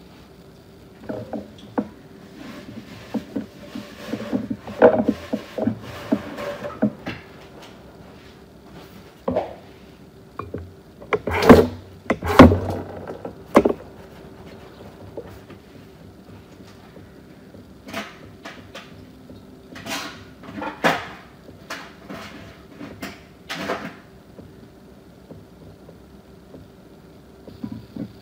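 Scattered knocks, clicks and clatter of things being handled, over a faint steady hum. The loudest cluster comes about halfway through.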